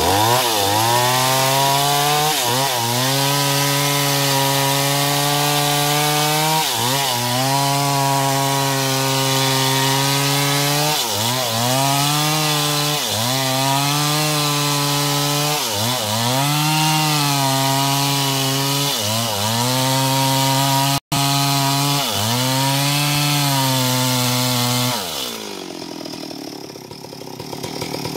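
Stihl MS 382 two-stroke chainsaw cutting wood at high revs, its pitch dipping briefly and recovering every two seconds or so as the chain takes load. About 25 seconds in the engine drops to idle, then revs up again near the end.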